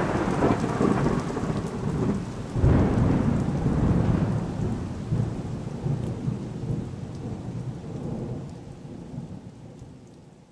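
Thunderstorm sound effect: thunder rumbling over rain, with a fresh thunderclap about two and a half seconds in, the whole storm fading out toward the end.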